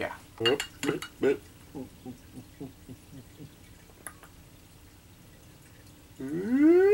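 Liquor poured from a glass bottle into a shot glass, in a run of quick gurgles that fade away. Near the end a man's voice rises in a long, loud 'ooh'.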